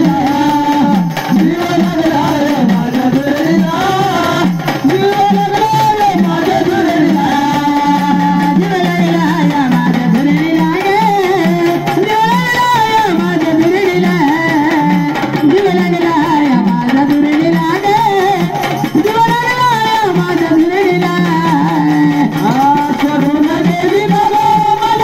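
Marathi gondhal folk song: a voice singing a winding melody over a steady hand-drum rhythm.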